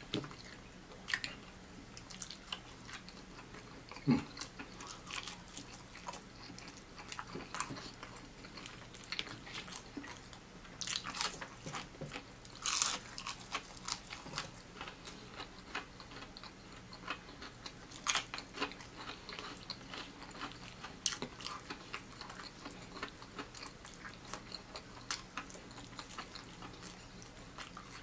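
Close-miked eating sounds of a person biting and chewing crispy fried chicken: irregular wet mouth clicks, smacks and crunches. A busier run of crunching comes about eleven to thirteen seconds in, and a single louder knock comes about four seconds in.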